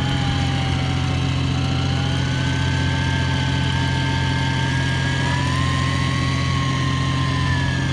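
Electric fishing reel winding in a loaded line, its motor whine drifting slowly up and down in pitch, over the steady low hum of the boat's engine.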